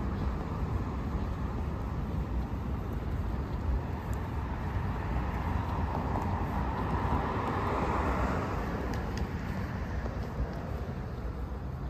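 Road traffic noise: a steady low rumble with one vehicle passing, swelling about two-thirds of the way in and then fading.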